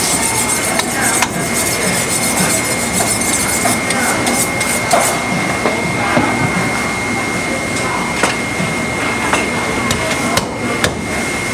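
Butcher's cleaver chopping through a pig carcass on a block, a few scattered sharp strikes over a busy background with a steady high tone.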